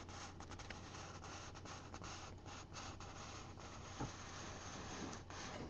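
Faint rubbing and rustling of a printed paper sheet handled close to the microphone, over a steady hiss and low hum, with one soft knock about four seconds in.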